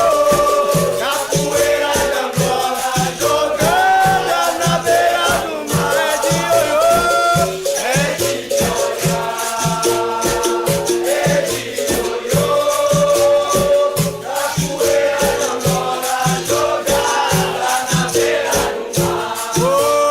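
Capoeira roda music: the rattling of the berimbau's caxixi over a steady, even beat, with voices singing in a call-and-response style.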